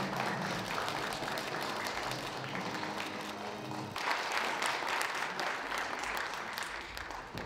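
Audience applauding, a dense patter of many hands clapping. Music plays underneath for the first half; about halfway through the clapping turns abruptly louder.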